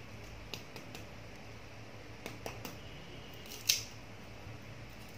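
A handful of short, sharp clicks at irregular moments, the loudest about three-quarters of the way through.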